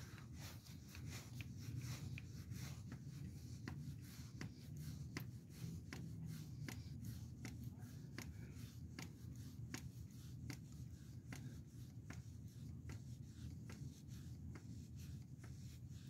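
Hand-pumped grease gun forcing grease through a quick-connect coupler into a grease fitting: faint, evenly spaced clicks of the pump strokes, a little over one a second.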